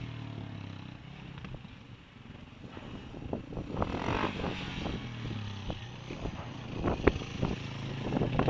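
Yamaha WR250's single-cylinder four-stroke engine through an Arrow aftermarket exhaust, ridden away and back. It fades as the bike moves off, revs up again about four seconds in, and grows louder near the end as the bike comes back.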